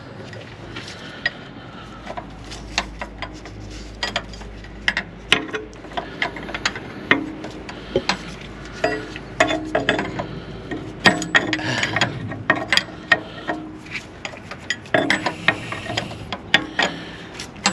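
Ratcheting wrench clicking in irregular runs as it is swung back and forth loosening a nut on a truck starter. The clicks are sparse at first and come in quicker bursts from about a third of the way in.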